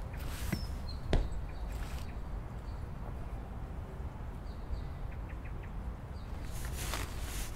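Green canvas backpack being handled and fastened on a wooden bench: fabric rustling, a sharp click about a second in, and more rustling near the end as the bag is lifted. Underneath runs a steady low outdoor rumble with a few faint bird chirps.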